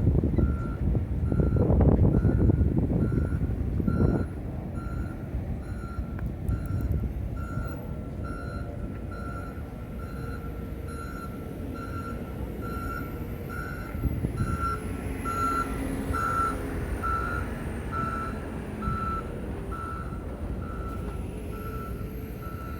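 Construction vehicle's reversing alarm beeping steadily, a single-pitch beep repeating a little more than once a second. A loud low rush of traffic or wind covers the first four seconds, then eases to a steady rumble.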